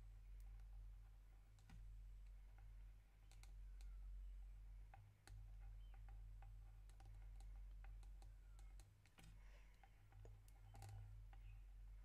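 Near silence: a low steady hum with faint, irregular clicks from the tip of a black Posca paint marker on acrylic paper as lettering is traced.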